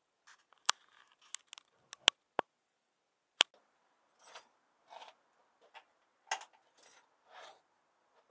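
Sharp clicks and knocks of the camera being handled and set down, then several soft scuffing footsteps on paving slabs.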